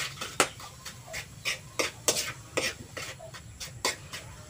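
A spoon scraping and knocking against a wok as coconut filling is stirred over the fire, in short strokes about two a second.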